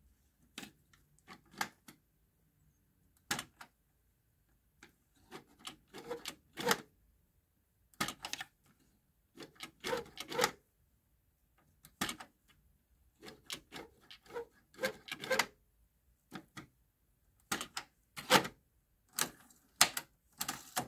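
Push buttons on a Pyle PT-659DU dual cassette deck clicking and clunking as they are pressed over and over, in single clicks and quick clusters.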